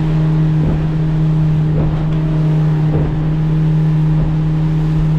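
Boat's outboard motor running steadily at speed, one constant tone, under the rush of wind and water.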